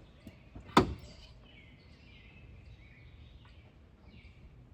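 A single sharp clank of a hand tool against metal about a second in, as a wrench goes onto the alternator bolts; otherwise faint outdoor background.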